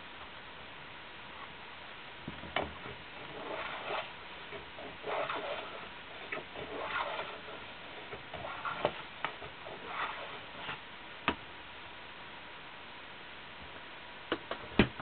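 Small hand-tool work: a run of short scraping strokes mixed with sharp clicks and taps. The loudest taps come near the end.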